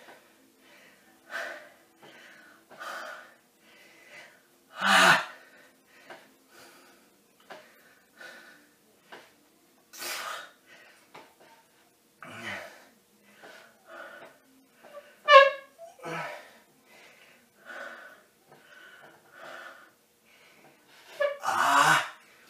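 A man breathing hard under the effort of single-leg hip raises, with heavy exhalations every second or two and a short strained vocal groan about fifteen seconds in.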